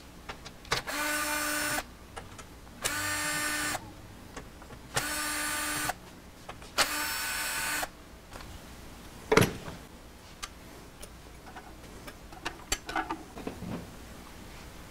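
Handheld cordless drill/driver running in four short bursts of about a second each, a steady motor whine, followed by a single sharp knock about nine seconds in and a few light clicks.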